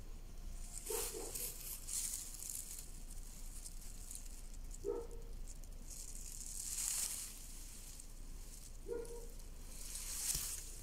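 Rustling of dry leaves and plants in several brief swells, with three short low tones about four seconds apart.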